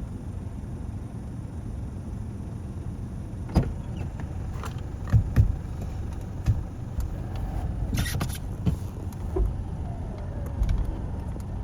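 Mitsubishi L200 pickup running with a steady low rumble, broken by sharp knocks and clunks about three and a half seconds in, twice around five seconds and again around eight seconds.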